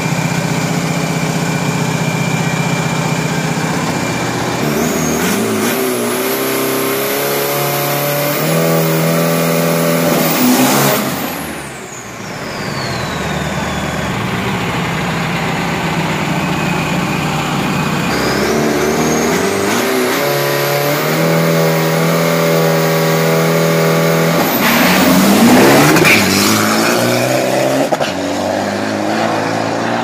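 Isuzu drag-racing pickup's turbodiesel engine idling, then revved up in steps twice. A high whistle falls away as the revs drop in the middle, and the engine is loudest near the end.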